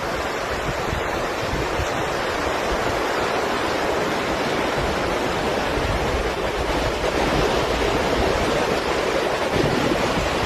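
Ocean surf washing onto a sandy beach: a steady rush of breaking waves, with wind buffeting the microphone.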